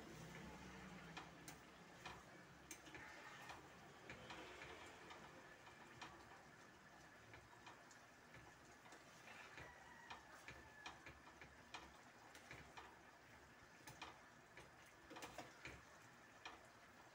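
Faint, irregular clicks and taps of a spatula stirring taro leaves in simmering coconut milk in a stainless steel pan.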